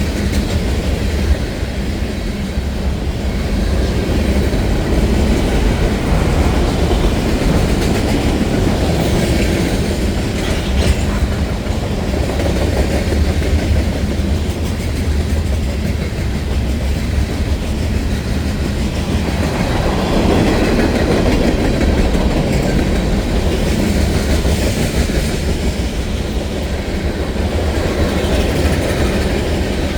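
CSX freight train's cars rolling past, a steady rumble of steel wheels on the rails.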